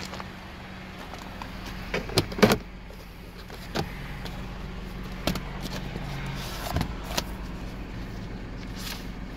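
Plastic glovebox of a 2003 Honda CR-V being opened: a quick cluster of sharp clicks and knocks from the latch and lid about two seconds in, then scattered clicks as its contents are handled, over a steady low hum.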